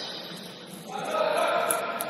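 Indistinct voices of players and onlookers in a basketball gym, getting louder about a second in.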